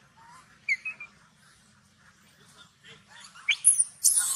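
Macaque calls: a few short high squeaks about a second in, then a loud, shrill screech near the end.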